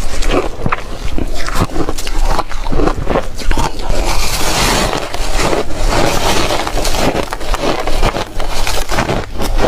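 Close-miked chewing and crunching of re-shaved refrigerator ice, a rapid irregular run of crunches, with a brief gritty, hissing stretch about halfway through.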